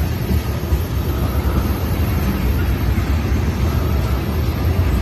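Loaded ethanol tank cars of a freight unit train rolling past close by: a steady low rumble of steel wheels on rail.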